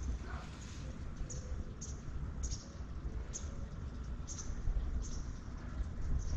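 Wind rumbling on the microphone, with a series of short, high-pitched chirps about once a second.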